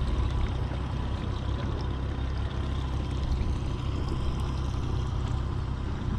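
Water sloshing and trickling against the hull of a small boat, over a steady low rumble.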